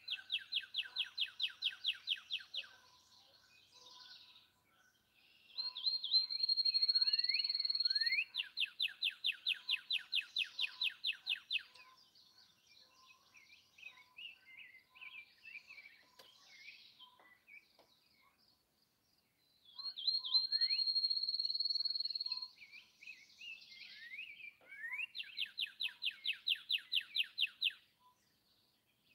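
Songbirds singing. One repeats a song of a rising note and a long, even trill of high notes, some songs opening with a long high whistle. Fainter chirps fall between the songs.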